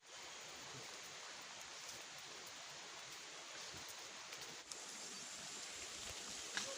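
Faint, steady outdoor background hiss with no clear single source, broken by two small clicks about four and a half and six and a half seconds in.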